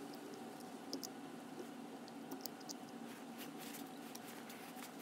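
Faint clicks and light scratches of fingers handling small metal carburettor parts, with a quick run of ticks about three seconds in as the cap of a small plastic bottle is twisted off, over a steady low hum.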